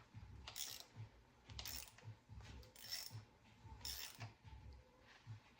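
Hand ratchet wrench clicking back and forth in slow strokes, about one a second, as a stuck bolt on an LS V8 engine is worked loose.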